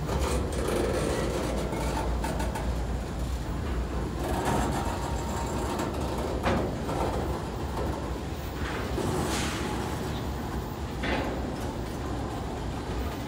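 Freight train cars rolling past close by: a steady low rumble of steel wheels on the rails, with a few short sharp knocks about six, nine and eleven seconds in.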